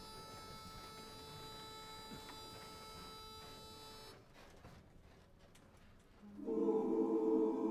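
A single steady reed note from a pitch pipe, held for about four seconds and then cut off, giving the chorus its starting pitch. After a short quiet with a few faint clicks, a cappella barbershop chorus voices come in loudly on a sustained chord about six seconds in.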